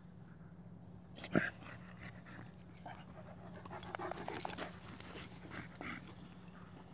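A dog panting close by, in short noisy breaths that cluster about four seconds in, with one brief sharp sound about a second and a half in.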